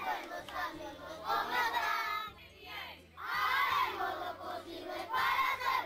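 A group of children singing a song together in unison, in phrases with a short break about halfway through.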